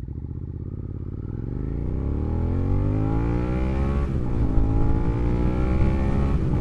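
Suzuki SV650's 645 cc V-twin accelerating hard from a standstill, the engine note rising through first gear, dropping at an upshift about four seconds in, then rising again, with a second shift near the end. The rider puts it at about 20% throttle.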